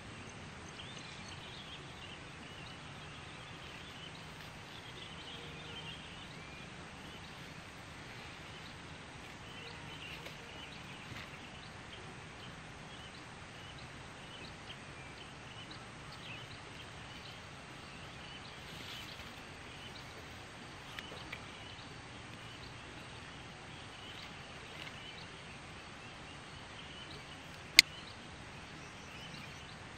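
Steady outdoor ambience with faint high chirping scattered throughout and a few soft ticks. One sharp click near the end is the loudest sound.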